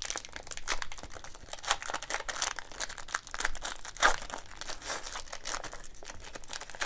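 Foil wrapper of an Upper Deck Exquisite hockey card pack crinkling as it is torn open and handled, a run of short crackles with a louder one about four seconds in.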